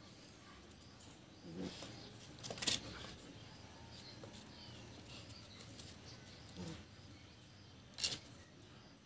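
Quiet outdoor background with faint bird chirping, broken by a few short scuffling sounds from a German Shepherd puppy and an adult German Shepherd at play, and two sharp clicks, one about three seconds in and one near the end.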